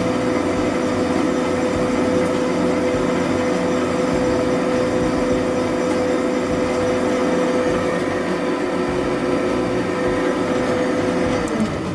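Inoue Seisakusho three-roll mill running: a steady mechanical drone with a constant hum from its drive as the steel rolls turn. Near the end the hum sags in pitch and a click follows, as the mill is being stopped.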